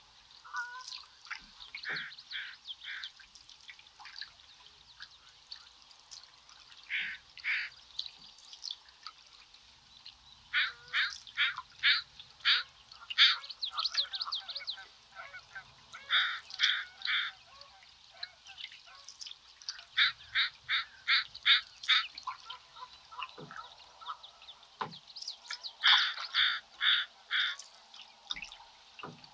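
Ducks calling in bouts of short, quickly repeated calls, several bouts one after another. A few soft knocks or drips come in between.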